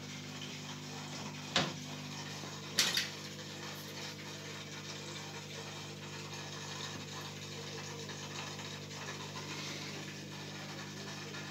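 Steady electric hum of an aquarium pump, with two sharp knocks a little over a second apart near the start.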